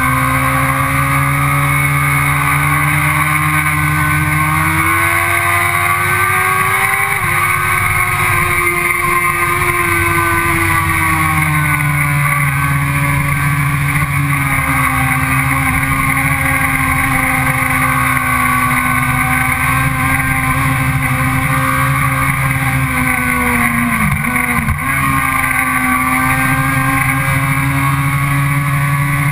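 Sport motorcycle engine running hard on track. Its pitch climbs over the first seven seconds and eases down about twelve seconds in, with a brief sharp dip about twenty-four seconds in.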